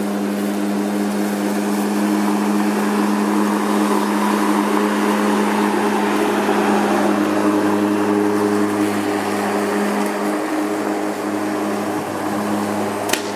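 Lawn mower running with a steady motor hum as it cuts grass, with one or two sharp clicks near the end.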